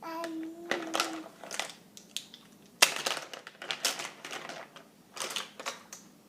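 A toddler's short held vocal note, followed by irregular sharp knocks and clattering taps, the loudest nearly three seconds in.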